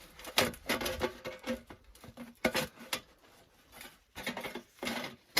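Stovepipe sections for a tent stove being pushed and twisted together by hand: irregular scraping and clinking of metal on metal, with a few sharper knocks.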